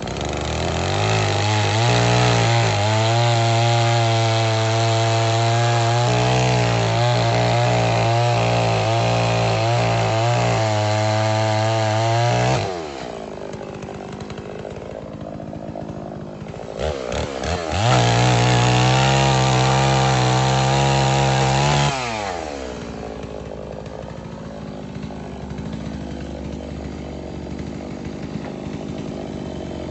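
Holzfforma G660 92 cc two-stroke chainsaw at full throttle cutting through a stack of sawmill scrap wood for about twelve seconds, then dropping to idle. After a couple of blips it runs at full throttle again for about four seconds and then settles back to idle.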